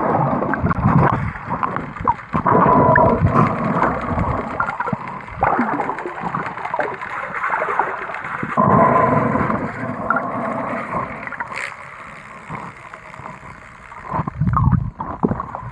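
Water gurgling and rushing as heard underwater by a swimmer's action camera, muffled and uneven, coming in surges that rise and fall, with a faint hum at times.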